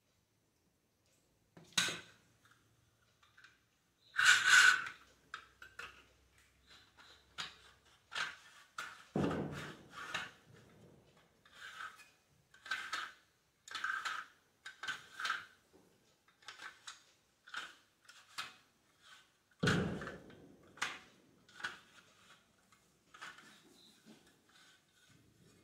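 Metal kitchen utensils clinking and knocking as a steel chakli press is handled, loaded with dough and closed: a louder clatter about four seconds in, then a run of light clicks with two heavier thumps.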